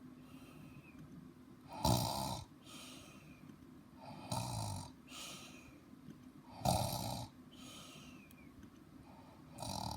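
Loud snoring: four deep, rasping snores about two and a half seconds apart, each followed by a softer breath out.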